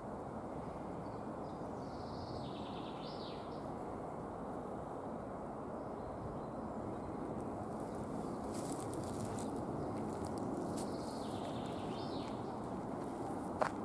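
A songbird sings two short phrases, about two seconds in and again around eleven seconds, over a steady low hiss of outdoor background noise. A few light crackles come around eight to ten seconds, and there is a sharp click near the end.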